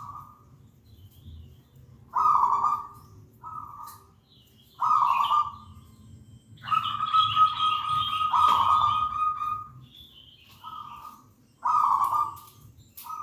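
Zebra dove (perkutut) cooing: a series of short coos, with one long drawn-out coo in the middle.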